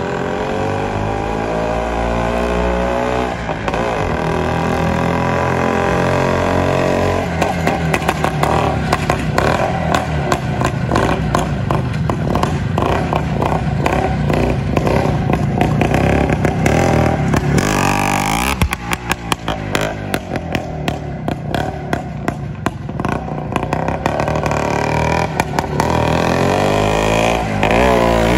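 Greeves two-stroke motorcycle being ridden: the engine revs up at the start and again near the end, with a rapid crackling, popping exhaust note in between as the throttle opens and closes.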